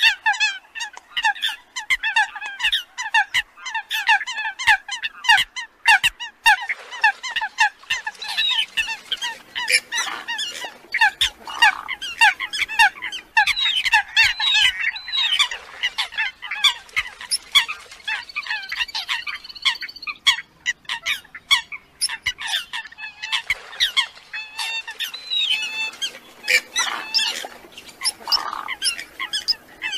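Eurasian coots calling in a dense chorus: many short, rapid, overlapping calls mixed with sharp clicks, played as a coot lure recording.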